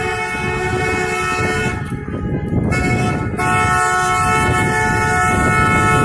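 Several car horns at different pitches held down together in long, overlapping honks, with a short break about two seconds in, over the noise of passing cars.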